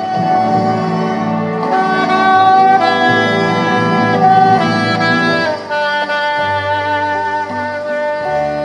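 Saxophone playing a slow melody of held notes over a backing accompaniment with a bass line.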